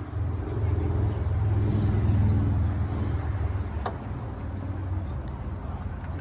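A motor vehicle going by: a low engine hum that swells to its loudest about two seconds in, then gradually fades. A single short click comes about four seconds in.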